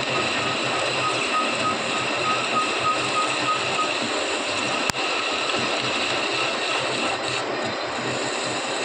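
A machine running steadily with a dense mechanical noise, a faint pulsing high tone over the first four seconds and a single sharp click about five seconds in.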